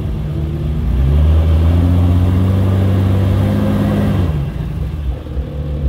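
Jeep Wrangler LJ rock crawler's engine revving up under load as it climbs a rock ledge. It holds the higher revs for about three seconds, then drops back toward idle about four seconds in.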